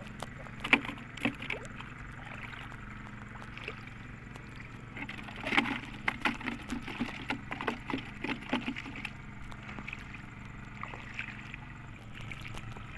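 Short splashes and sloshes of shallow seawater as hands reach and dig into the water, a dense run of them in the middle, over a steady low hum.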